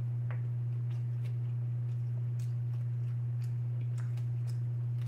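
Steady low hum, with faint scattered clicks and smacks of someone chewing a mouthful of food.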